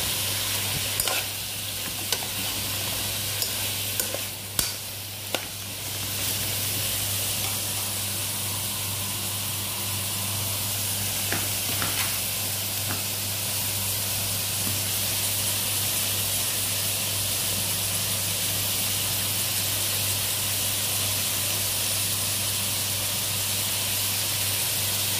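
String beans and eggplant sizzling in hot oil in a pan. A spoon being stirred through them clicks and scrapes against the pan, mostly in the first few seconds and again briefly in the middle. A steady low hum lies underneath.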